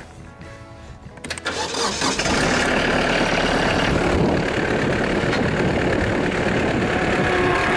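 A vehicle engine is started with the key. After a click and a brief crank it catches about two seconds in and then runs at a steady idle.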